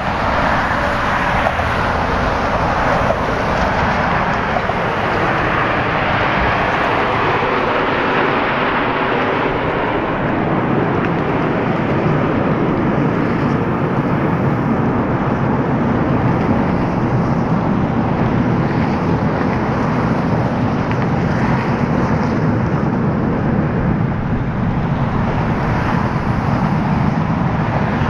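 Jet roar from the Red Arrows' formation of BAE Hawk trainers, their Adour turbofans passing overhead. The roar is hissy at first, then deepens to a low rumble about ten seconds in as the jets pass and fly away.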